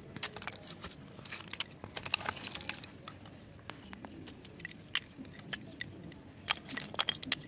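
Dry chunks of Fuller's earth (multani mitti) clinking, crackling and crumbling as hands pick through the pile and break pieces apart: a scatter of sharp crisp clicks, with busier flurries about a second and a half in and near the end.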